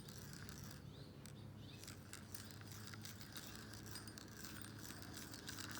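Faint ticking of a push-button spincast fishing reel being cranked to retrieve a lure, over a low steady hum.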